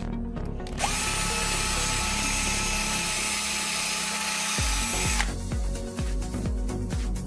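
Electric drill running with a steady motor whine for about four and a half seconds, starting just under a second in and stopping sharply, over background music.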